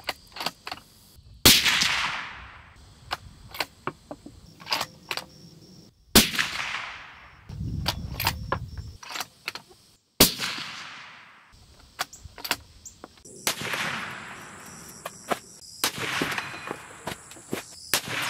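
Suppressed 7mm-08 bolt-action rifle (Ruger American Gen 2) fired three times about four seconds apart, each shot a sharp crack followed by a long rolling echo. Small clicks fall between the shots, and two softer, slower-swelling booms follow in the last third.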